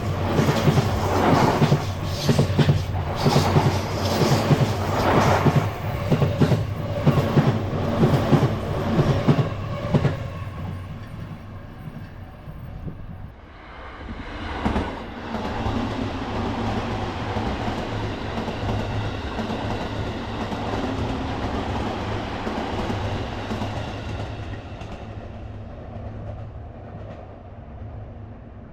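Train passing, its wheels clattering rhythmically over the rail joints for about the first ten seconds, then dying away. A steadier rumble follows, swelling and then fading near the end.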